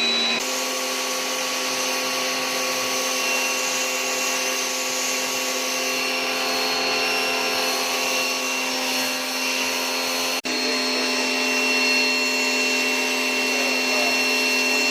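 Pressure washer running steadily with a constant whine from its motor and pump over the hiss of the spray on concrete. It cuts out for an instant about ten seconds in.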